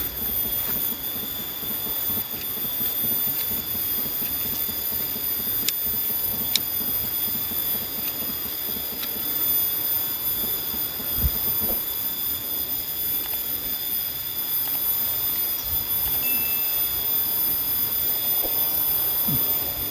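A steady high-pitched insect drone over low rustling and handling noise, with two sharp snips of hand pruning shears cutting durian twigs about six seconds in, and a couple of dull thumps later.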